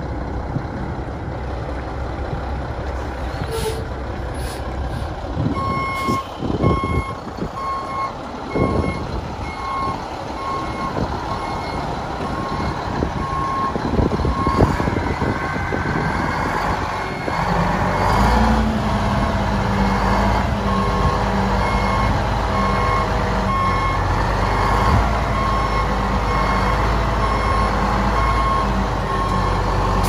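A 1993 Mack RD688S dump truck's diesel engine runs while its backup alarm beeps steadily from about six seconds in, with a few clunks before that. Just past the middle the engine speeds up and holds a higher steady pitch as the hydraulic hoist raises the dump body.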